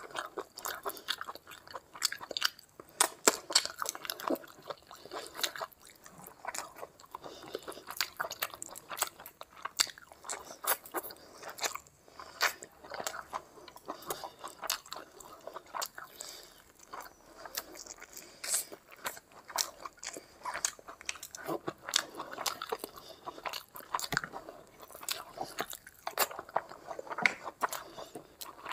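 Close-miked chewing and biting of a mouthful of rice and curry eaten by hand: a dense, irregular run of sharp mouth clicks and smacks.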